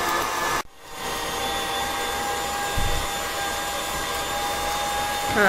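KitchenAid stand mixer running with its meat grinder attachment: a steady motor whine with a held tone. It cuts out just under a second in and spins back up.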